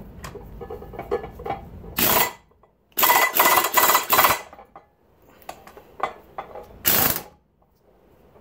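Power impact wrench running in three bursts on a blower rotor's gear retainer bolt: a short one about two seconds in, a longer rattling one about three seconds in, and another short one near seven seconds. It is pulling the rotors up tight against the inner races of the bearings. Light clicks of metal parts being handled come in between.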